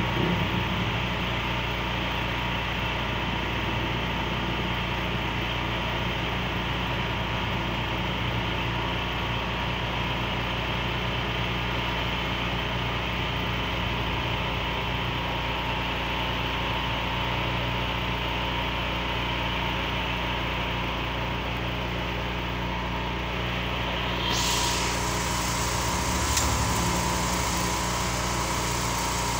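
A small engine running steadily at idle: an even, unchanging hum that holds the same pitch throughout.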